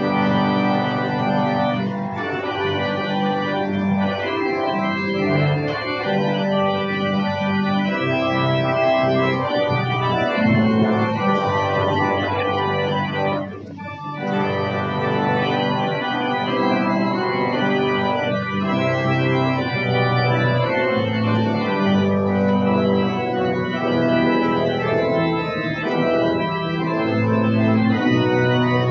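Church organ playing slow, sustained chords, with a brief drop in level about halfway through.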